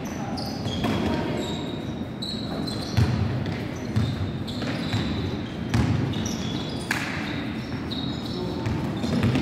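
Basketball being dribbled on a wooden gym court, several thuds about a second apart, with sneakers squeaking on the floor and players calling out.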